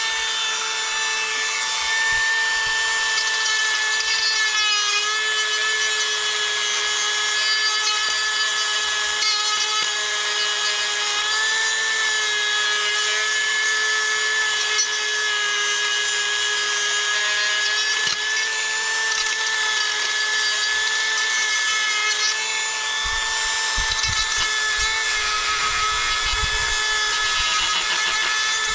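Small high-speed electric power tool running with a steady high whine as it bores a cable hole deeper into a 3D-printed plastic part. The pitch sags briefly a few times under load, and low bumps of the part being handled come near the end.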